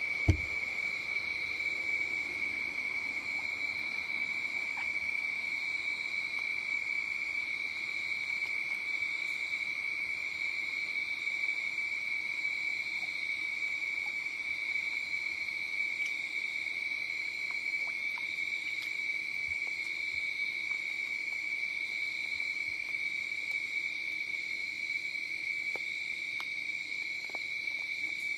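Steady chorus of night insects: one unbroken high-pitched trill, with a single short knock just after the start and a few faint ticks.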